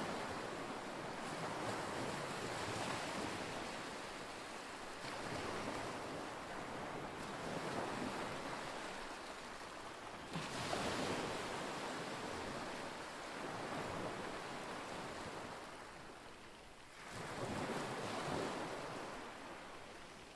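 Small waves washing in on a lakeshore, swelling and fading every two to three seconds, with wind on the microphone.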